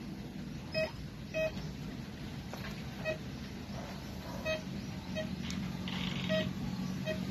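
Handheld metal detector giving about seven short beeps at uneven intervals as its coil is swept through muddy water. It is set to respond to metal and gold, so each beep signals a target. A steady low hum runs underneath.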